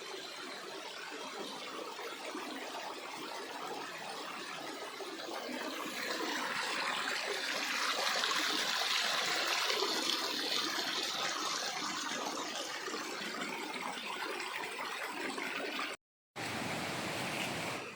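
Water of a forest stream flowing steadily, as an even rushing hiss, with a brief drop-out near the end.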